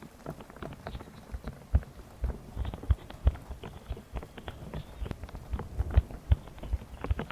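Sticky slime squished and worked close to the microphone, a quick irregular run of wet clicks and pops.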